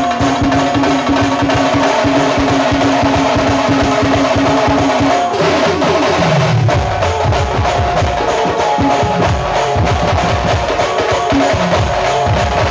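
Loud dance music with fast, dense drumming. A held tone stops about five seconds in, and deep, booming bass-drum hits take over.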